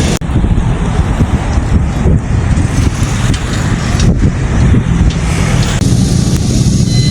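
Vehicle on the move: engine running under loud, rumbling road and wind noise.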